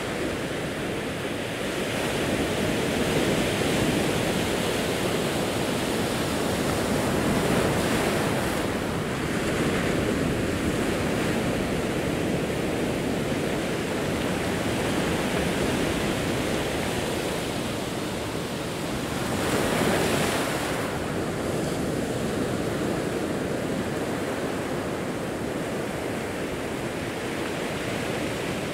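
Ocean waves breaking and washing over a rocky shore, the surf swelling and easing in slow surges, the biggest about twenty seconds in.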